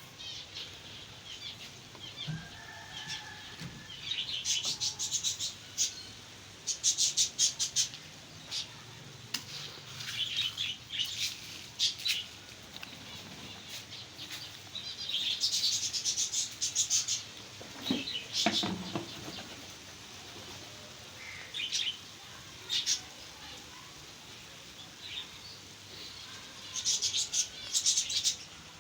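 Small aviary birds chirping and chattering in short bursts every few seconds.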